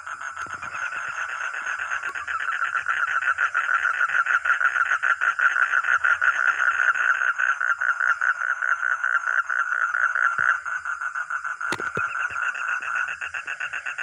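A frog calling in a fast, continuous pulsed trill, growing louder over the first few seconds and dipping briefly near the end.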